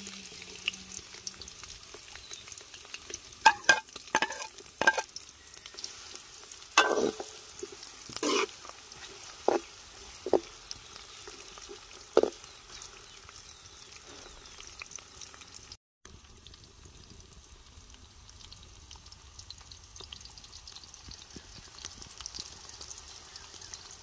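Chopped onions sizzling in hot oil in a large metal karahi, with a steel ladle stirring and knocking against the pan about nine times in the first half. After a brief dropout around two-thirds of the way through, the sizzle goes on quieter and steady.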